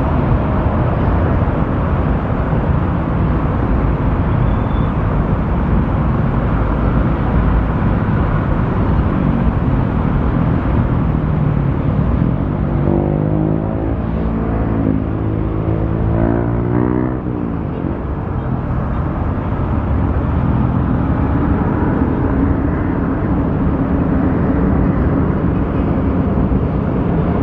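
Cessna Citation Encore business jet's twin turbofan engines making a loud, steady rumble. A wavering pitched sound is heard for a few seconds about halfway through.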